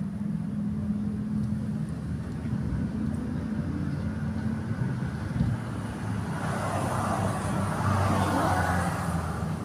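Steady low hum of a running motor-vehicle engine, with traffic noise that swells from about six and a half seconds and fades near the end, as of a vehicle passing.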